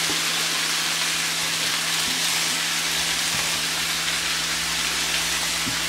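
Freshly added chopped vegetables sizzling in hot oil in a kadai over a medium flame: a steady, even hiss.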